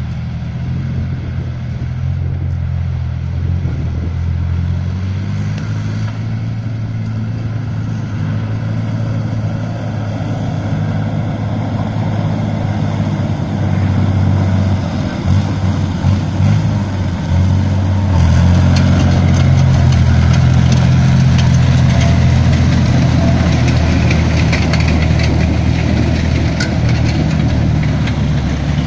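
BMP-1 infantry fighting vehicle's UTD-20 V6 diesel engine running as the vehicle drives across muddy ground. The engine note shifts in pitch and grows louder as the vehicle comes closer. In the second half, clanking from the tracks is heard.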